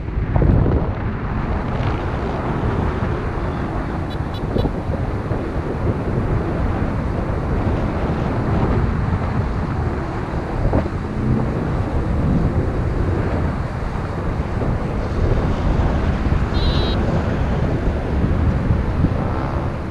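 Steady wind noise rushing and buffeting over the microphone of a camera carried by a paraglider pilot in flight.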